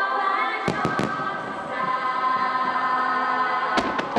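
Firework shells bursting with sharp cracks, three in quick succession about a second in and two more near the end. Choral music with held, sustained voices plays under them.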